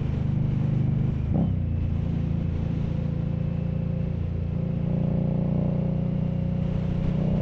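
Indian Scout 1200's liquid-cooled V-twin running through Vance & Hines exhaust while the bike is ridden, a steady engine note. About five seconds in it gets a little louder and climbs slightly in pitch as the throttle opens.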